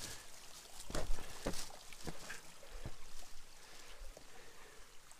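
Irregular knocks and scrapes of footsteps on loose stones in a rocky stream bed, the loudest about a second in, over a faint trickle of running water.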